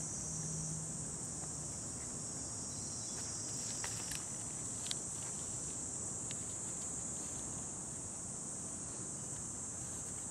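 A steady, high-pitched insect chorus, with a few faint clicks about four and five seconds in.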